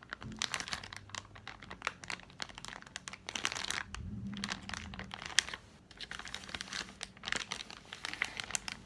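Plastic Airheads candy wrapper crinkled and handled, giving dense, irregular sharp crackles that come in flurries.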